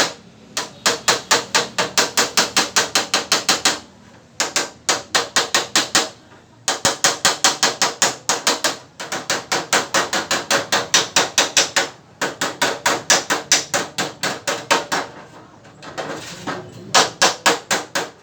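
Hammer tapping rapidly on a Mazda 323's fender during bodywork repair, in runs of quick strikes about five or six a second, broken by short pauses.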